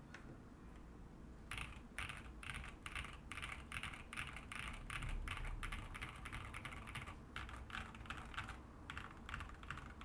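Typing on a GMK67 mechanical keyboard with Badseed V2 tactile switches and PBT keycaps. A few faint clicks give way, about a second and a half in, to fast continuous keystrokes.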